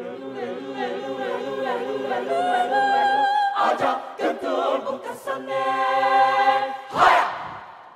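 Mixed choir singing held chords that swell in loudness, with a brief wavering, broken passage in the middle before settling on another sustained chord. About seven seconds in it ends on one loud sudden accent, which then dies away.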